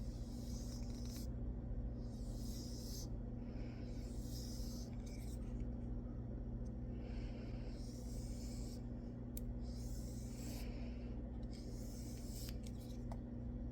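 Knife edge drawn in repeated strokes across a 9-micron sharpening abrasive, a dry scraping hiss for about a second each pass with short pauses between, to clean a stubborn burr off the edge. A steady low hum runs underneath.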